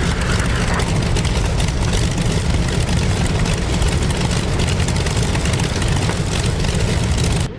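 Large radial piston engines of taxiing warbirds, a Grumman F7F Tigercat among them, running with a heavy, steady drone and propeller noise.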